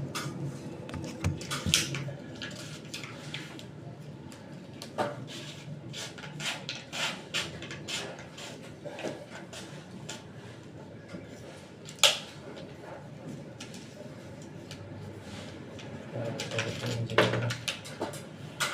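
Scattered clicks, taps and knocks of tools and hard parts being handled during the pump and wiring work, with one sharp knock about twelve seconds in.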